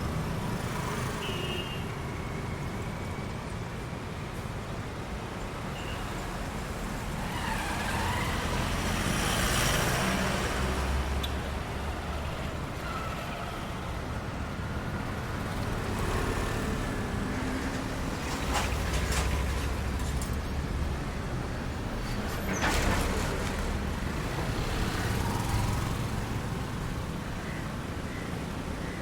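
Road traffic: a steady rumble of cars and other motor vehicles, with several louder swells as vehicles pass close by.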